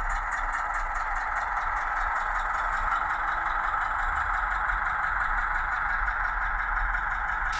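Model Ruston 48DS diesel shunter running with DCC sound: a recorded small diesel engine chugging with a steady rapid beat, played through the model's small cab speaker, mixed with the steady running noise of the model's motor and wheels on the track.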